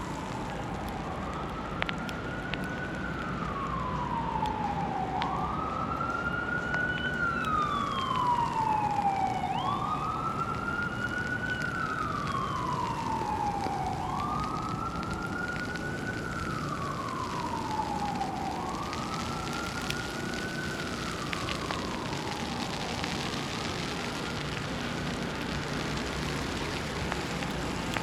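Emergency vehicle siren wailing, each cycle rising quickly and falling slowly about every four to five seconds, fading away after about twenty seconds. A fainter, higher siren glides briefly about seven seconds in, over a steady hiss of snowy street ambience.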